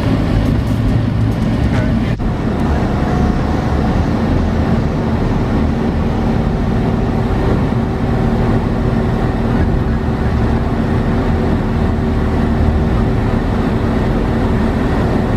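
Steady engine and road noise of a moving vehicle heard from inside, with a low hum throughout and a single sharp click about two seconds in.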